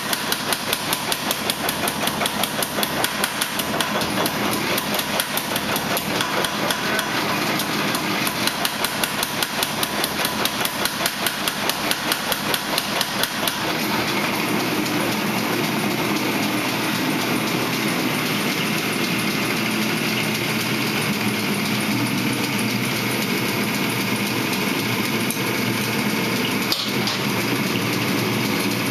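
Rapid, evenly paced hammer blows on hot steel at a forge, about two to three a second, stopping about halfway through. A steady noise runs underneath and continues on its own after the hammering stops, typical of a running forge.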